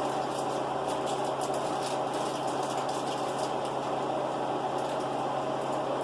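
Steady hum of a running household appliance: a constant low drone under an even noise, with a few faint ticks in the middle.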